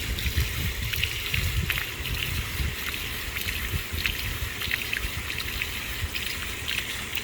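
Water trickling and splashing steadily from a pool filter being rinsed, the flush that clears it after its pressure gauge read high.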